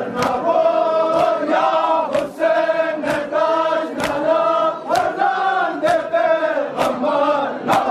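A crowd of men chanting a Farsi noha, a Shia lament for Ashura, in unison. Regular sharp slaps of hands striking chests (matam) keep the beat, roughly once or twice a second.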